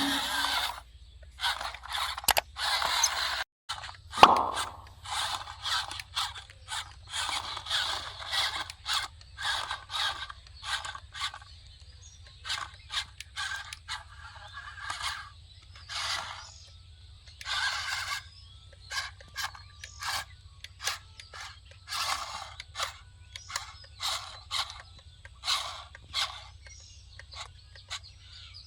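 Irregular short scraping noises, about one or two a second, over a faint steady low hum.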